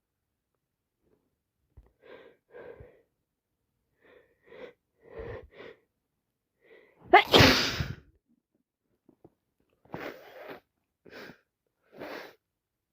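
A woman with a cold sneezes once, loudly, about seven seconds in. Before it come several short breaths, quickening just before the sneeze, and a few short sniffs follow it.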